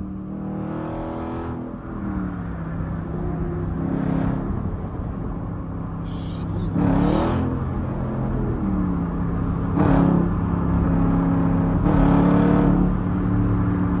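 Jeep's 5.7-litre Hemi V8 under way, heard from inside the cabin: a steady engine note that drops in pitch about two seconds in and again near nine seconds, growing louder toward the end.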